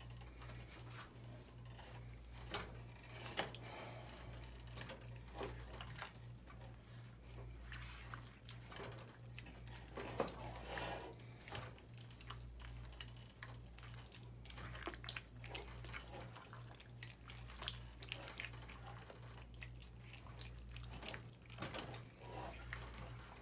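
A spoon stirring a thick, wet bean-and-corn soup in a pot: faint, irregular wet squelches and small scrapes against the pot, over a steady low hum.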